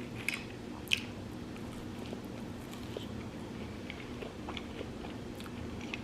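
A person chewing food close to the microphone: soft wet mouth clicks and smacks, with a couple of sharper clicks in the first second.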